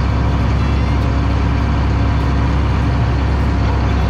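Allis-Chalmers 7045 tractor's turbocharged six-cylinder diesel engine running steadily, heard from inside the cab.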